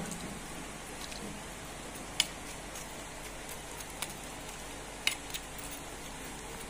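A metal spoon clicking a few times against a ceramic bowl while cireng is stirred in its broth, the sharpest click about two seconds in, over a steady faint hiss.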